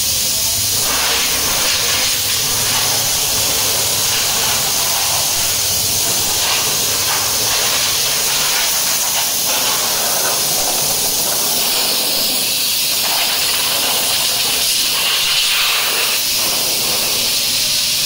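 High-pressure water spray hissing steadily as it is played over a car's front end and into its engine bay. The tone shifts a few times as the jet moves across different surfaces.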